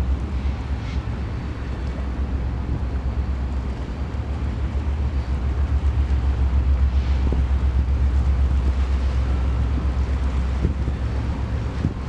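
Wind buffeting the microphone: a steady low rumble that flutters rapidly in loudness, growing somewhat louder about six seconds in.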